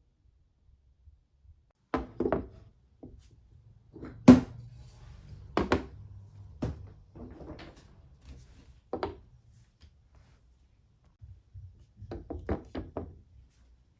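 Hard wooden knocks and clacks on a wooden marble-run slider, a dozen or so separate strikes with one louder knock a few seconds in, then a quick rattling run of clacks near the end.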